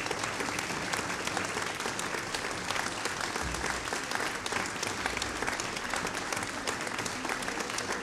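Concert audience applauding steadily: dense, even clapping from a hall full of people.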